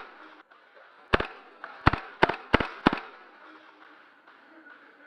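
Airsoft gas blowback pistol fired five times in quick, uneven succession, about a second in, each shot a sharp crack with the slide's snap.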